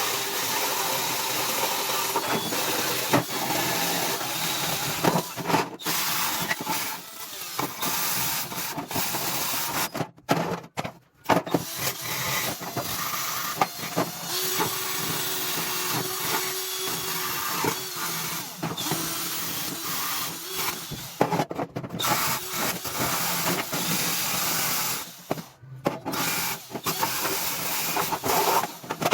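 Steady power-tool noise during metal restoration work, in several clips broken by abrupt cuts, with scattered clicks.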